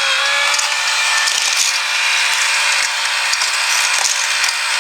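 Battery-powered motor of a Hot Wheels toy track set running steadily, whirring and rattling as it drives the plastic spiral lift that carries die-cast cars upward.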